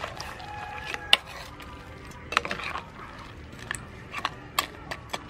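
Metal ladle stirring soup in a stainless steel pot, clinking and knocking against the pot's sides several times; the sharpest knock comes about a second in.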